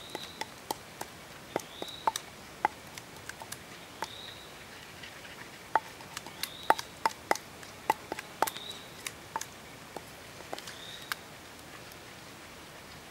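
Wooden pestle pounding and grinding red chilies in a wooden mortar: irregular knocks, bunched into quick runs at times.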